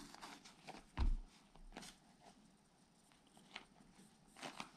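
Hands handling a mounted rubber RC crawler tire, with faint rubbing and light taps and one dull thump about a second in.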